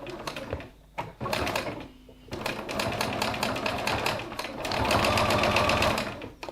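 Sewing machine stitching a seam through the layers of a fabric wallet: two short runs, then a longer steady run of rapid needle strokes that gets louder toward its end before stopping.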